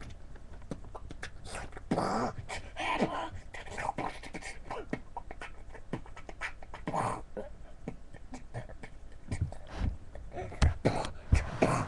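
Beatboxing: an irregular run of mouth clicks and short vocal bursts, with several deep kick-drum thumps near the end.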